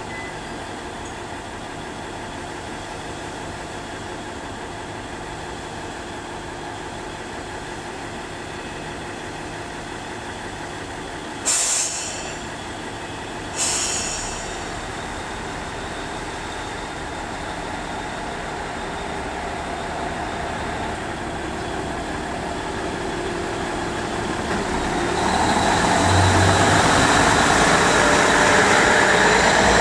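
KiHa 110 series diesel railcar idling steadily at the platform, with two short sharp hisses of released air a couple of seconds apart about a third of the way in. Its diesel engine then revs up and grows steadily louder, rising in pitch, as the railcar pulls away past.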